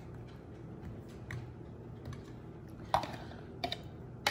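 Light clicks and taps of a measuring scoop and an ingredient container against a metal flour sifter and mixing bowls while dry ingredients are put into the sifter, with a few sharper taps from about three seconds in.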